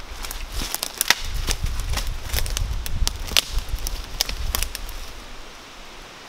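Footsteps through dry forest leaf litter, with dead twigs snapping and crackling underfoot in quick irregular cracks; the snaps thin out after about four and a half seconds.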